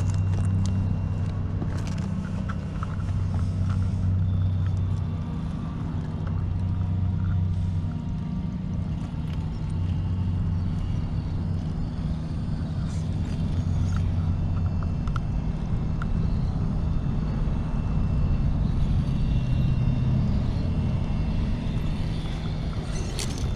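Electric motor and geared drivetrain of an RC rock crawler driving at crawling speed, heard as a steady low rumble that swells and eases, with a few small clicks.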